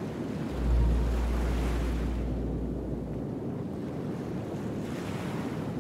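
Sea waves washing on a beach, with wind. A deep low rumble swells about half a second in and fades away around three seconds.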